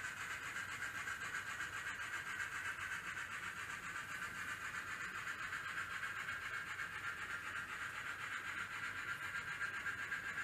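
N scale model trains running on the layout's track: a steady high-pitched whirr of small motors and wheels on rail.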